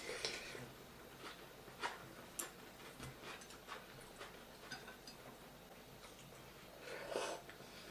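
Close-miked eating sounds: chewing with scattered wet mouth clicks and smacks, with a louder burst right at the start and another about seven seconds in.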